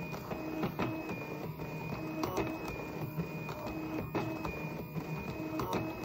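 Stepper motors of a Rubik's cube solving machine turning the cube's faces one after another: a steady whine with a sharp click at the start and stop of each turn, roughly two a second.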